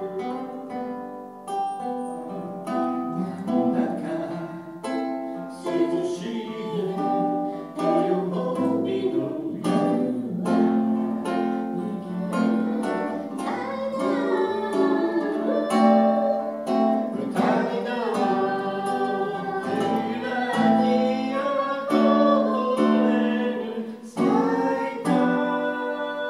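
A man singing a Japanese folk song, accompanying himself on a strummed acoustic guitar.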